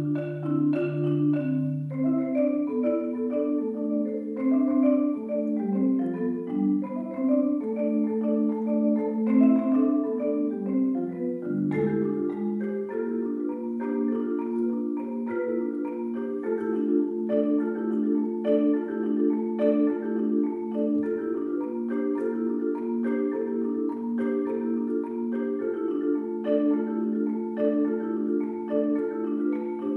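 Solo concert marimba played with mallets in a fast stream of rapidly repeated notes. A low bass figure sounds for the first two seconds, then busy mid-register patterns follow. About twelve seconds in it settles into a steady, even ostinato.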